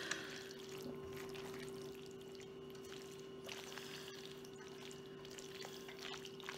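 Soft, wet squishing of dressed bowtie pasta salad being stirred with a silicone spatula in a stainless steel bowl, faint, over a steady low hum.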